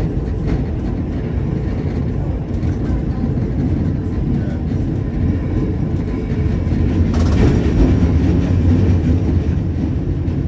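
1911 electric tram running along its rails, heard from inside the wooden car: a steady rumble from the wheels and running gear. It grows louder and harsher about seven seconds in.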